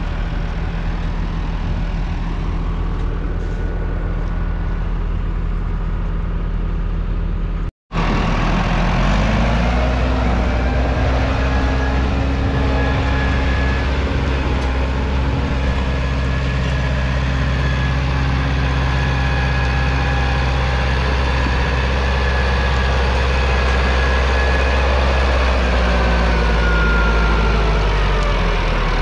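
Massey Ferguson 3060's 4.1-litre four-cylinder diesel engine running steadily under load, pulling a four-furrow plough. After a brief break about eight seconds in, the engine note rises and then holds. Near the end the note and a high whine fall in pitch.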